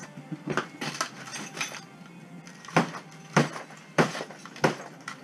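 Hand tool smashing a TV set: lighter knocks and clinks of glass and debris in the first couple of seconds, then four hard blows about half a second apart, with breaking glass and clinking shards.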